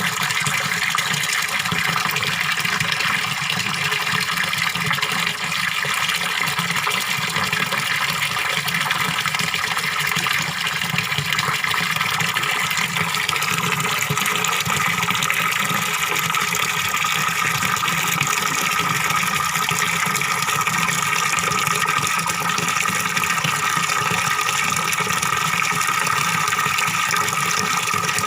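Small waterfall pouring into a fish pond: a steady rush of falling water with a gurgling splash, even and unchanging throughout.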